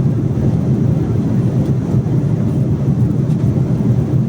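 Steady low roar of an airliner heard from inside the passenger cabin: jet engine and airflow noise.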